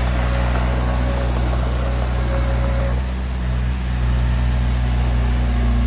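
Heavy diesel engine running steadily at low revs, its level dipping slightly about three seconds in.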